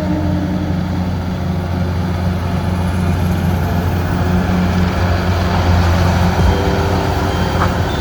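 A heavy vehicle's engine running steadily with a loud, constant low drone.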